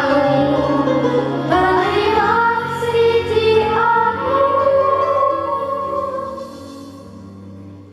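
A song sung with musical accompaniment, in long held notes, growing quieter over the last second or two.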